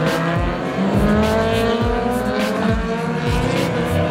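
Several superbike engines running at high revs as the bikes accelerate, their pitch rising steadily. A steady music beat thumps underneath.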